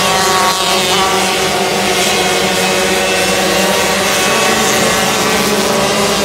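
Several 125cc micro sprint car engines racing on a dirt track, a loud, continuous blend of overlapping engine notes whose pitches rise and fall as the cars go through the turn.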